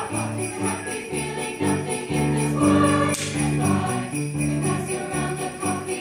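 A mixed choir of male and female voices singing, accompanied by jingling sleigh bells, with a loud shake of the bells about three seconds in.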